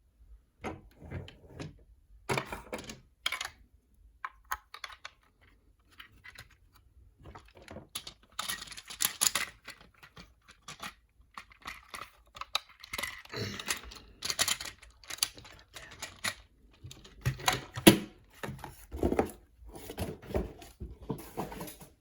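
A plastic toy figure and its packaging being handled: irregular clicks, rattles and rustling in short bursts with brief pauses between them.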